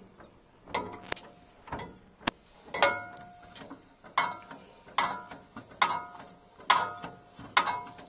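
Under-slung spare-wheel winch being hand-cranked with a rod key to lower the spare tyre: metal clanks and clicks about once a second, each with a short metallic ring.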